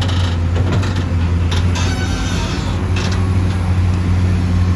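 Heavy diesel engine running steadily with a deep drone, with a few sharp knocks scattered through it.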